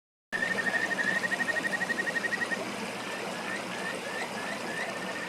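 Male kajika frogs (Buergeria buergeri) calling over a running stream: a fast trill of short high whistled notes for about two seconds, then a run of short separate rising notes, about three a second. The short clipped notes are a rival male's counter-calls to another male's call, in competition over females.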